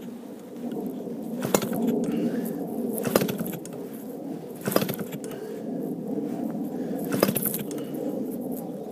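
Propeller of an ASP 180 two-stroke model engine, converted to petrol, being flicked by hand with the choke on. The engine does not fire: there are only four sharp clicks spaced a second or two apart over a steady low background drone. The owner puts the failure to start down to a cold engine.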